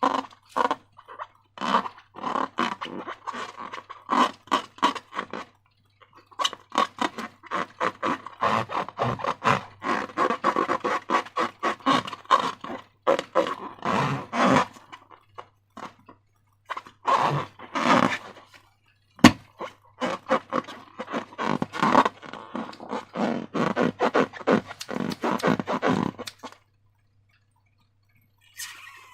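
Slime being squished, pressed and stretched by hand, giving runs of quick wet, sticky clicks and crackles with short pauses between handfuls. A single sharp click about two-thirds of the way through.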